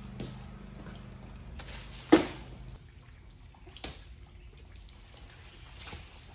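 Water dripping and splashing on a wet concrete floor, with scattered small drips and splashes and a steady low machine hum that stops a little under three seconds in. One sharp loud thump about two seconds in.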